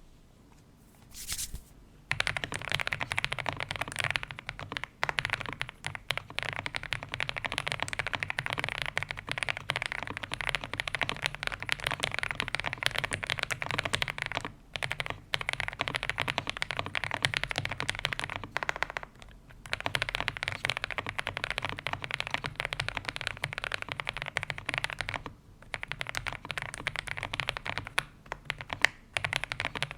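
Continuous typing on an Ajazz AK820 Pro mechanical keyboard fitted with lubed KTT Kang White linear switches and cherry-profile keycaps. It starts about two seconds in, with a few brief pauses.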